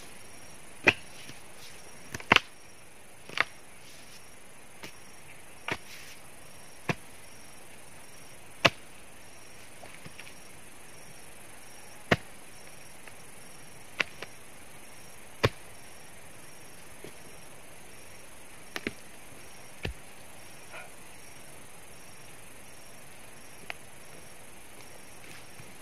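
Irregular sharp chopping blows of a long-handled hand tool striking into roots and soil around a tree stump, about a dozen strikes, thinning out in the second half.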